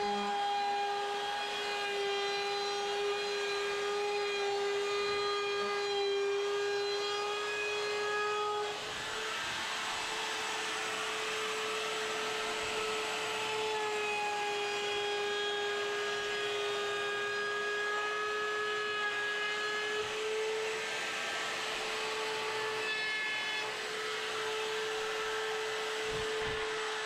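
Electric wood router running at speed with a steady high whine, cutting the edge of a wooden window ledge flat along a guide board. From about nine seconds in, a rougher hiss of the bit cutting wood joins the whine.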